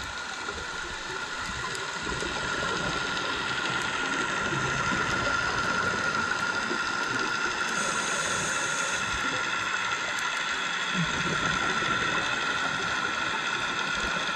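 Underwater sound heard through a camera's waterproof housing: a steady hiss with a held whine, growing louder about two seconds in.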